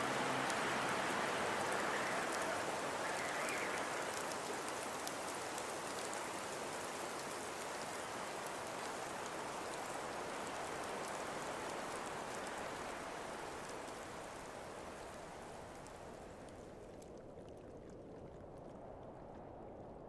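Steady rain falling, with fine drop ticks through the hiss; it fades lower over the last several seconds.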